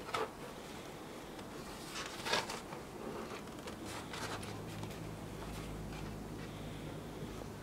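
A few brief rustles and scrapes of handling noise, about 0.2, 2.3 and 4 seconds in, over a steady low hum.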